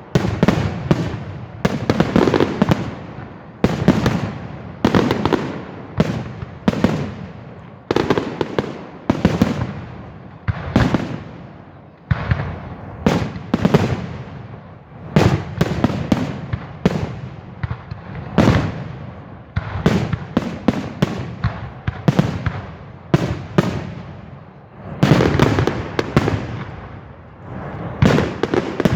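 Aerial fireworks display: a rapid, continuous series of loud bangs and booms from bursting shells, each with a crackling, echoing tail, several bursts a second at the busiest moments.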